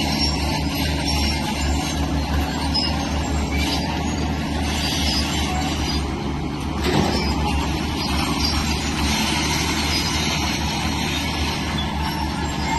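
Diesel engine of a Shantui crawler bulldozer running steadily under load, with a high grinding, scraping noise from its steel tracks and the pushed stone and soil laid over the low engine rumble. The grinding drops away briefly about six seconds in, then comes back with a short jolt.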